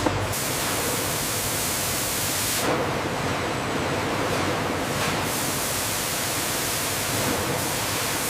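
Steady hiss of noise across the whole range, shifting in character every two or three seconds.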